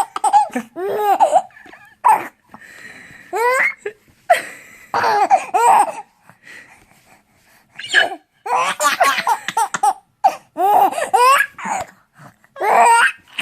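A baby of about 19 weeks laughing in repeated high-pitched bouts with short pauses between them.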